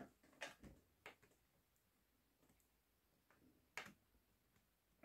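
Near silence: quiet room tone with a few faint, short clicks, the clearest one near the end.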